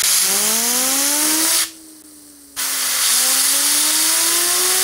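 A fidget spinner driven by a blast of compressed air: a loud hiss of air with a whine that rises in pitch as the spinner speeds up. The air cuts off about a second and a half in and the whine sinks slightly as the spinner coasts, then the air comes back about a second later and the whine climbs again.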